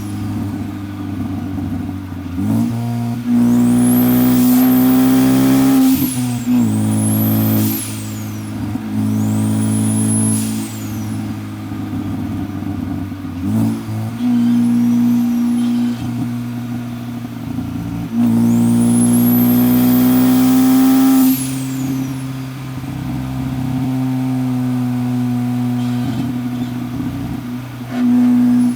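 Turbocharged Ford Focus ST, fitted with a Garrett G25-550 turbo, pulling hard in several bursts of acceleration. The engine note climbs and then drops between pulls, and a high turbo whistle rises and falls over each pull.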